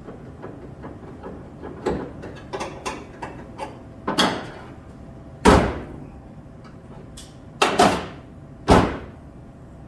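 Sheet-metal knocks and bangs as a replacement rocker panel is worked and struck into place on the car body: a run of light knocks, then several sharp, ringing bangs, the loudest about halfway through and a quick double near the end.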